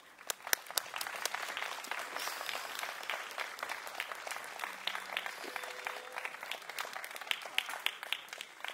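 Audience applauding: many hands clapping start just after the opening and thin out toward the end.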